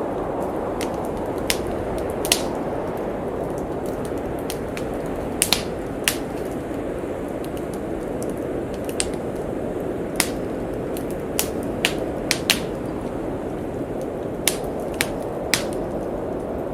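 Wood fire crackling in a fireplace, with irregular sharp pops about once a second, over a steady rushing noise of blizzard wind.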